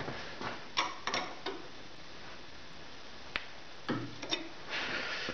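Scattered metallic clicks and knocks of a spanner being fitted and turned to tighten the workpiece's clamping on a metal shaper.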